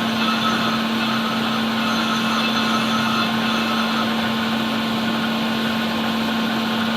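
Metal lathe running steadily with the flywheel spinning in its chuck, an even hum on one steady tone.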